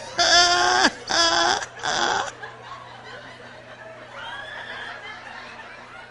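A woman laughing loudly, in three bursts over about two seconds, then quieter.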